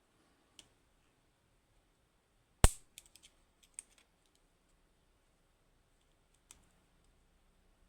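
One sharp, loud metallic click about two and a half seconds in, then a few small light clicks and ticks near it and once more near the end: small metal parts and tools of a Lockman Megacross lock being handled while the lock is taken apart.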